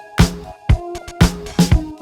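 Electronic dance-style music with a steady beat, about two drum hits a second, played back through a Konzert KCS-212 micro component system.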